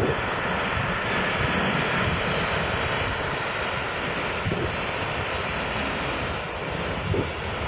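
Boeing 747-400ER jet engines running, a steady rushing jet noise as the airliner lands.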